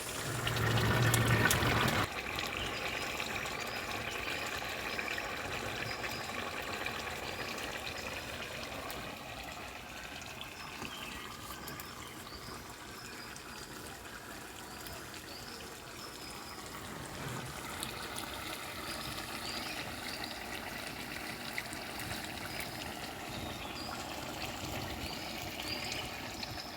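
Thick curry simmering in a pan, bubbling steadily with many small pops of bursting bubbles. A louder, brief noise fills the first two seconds.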